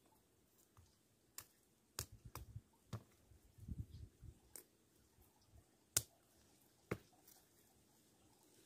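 Roasted cashew nut shells being cracked open by hand: scattered sharp clicks and cracks, about seven in all, the loudest about six seconds in, with soft handling noise between.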